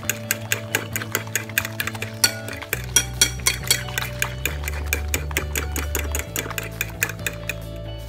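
Metal whisk beating charcoal crepe batter in a bowl, clicking against the sides at about six strokes a second and stopping near the end. Background music with a low bass line plays underneath.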